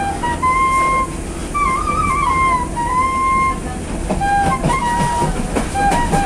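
Bamboo transverse flute playing a slow melody of held notes with small slides between them, over the steady rumble of a running train. Several sharp clicks from the wheels and carriage come through in the second half.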